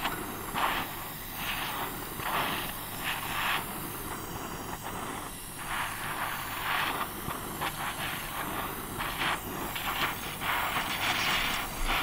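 Gas torch flame hissing as it heats a steel sheet to melt body solder onto a weld seam. The hiss swells and fades in irregular surges.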